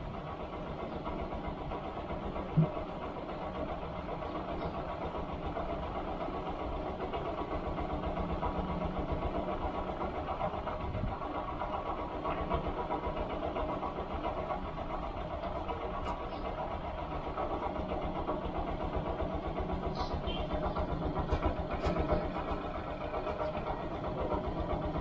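Motorcycle engine of a stationary motorcycle-sidecar tricycle idling steadily, with one sharp knock about two and a half seconds in.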